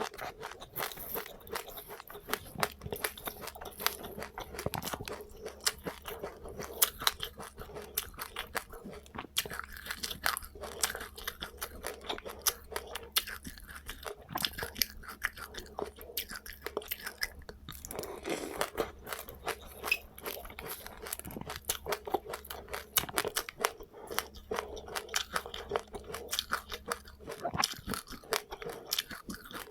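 Close-up chewing of a mouthful of seeds with passionfruit: dense, irregular crunching and crackling as the small seeds are crushed between the teeth.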